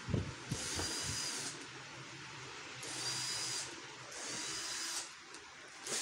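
Handheld power drill-driver whirring in three short bursts of about a second or less each, working screws in the plastic body of an air cooler.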